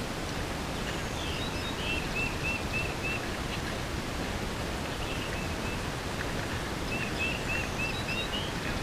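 A songbird sings two phrases, each a quick run of about five repeated arched notes, about a second in and again about seven seconds in. A steady outdoor hiss runs underneath.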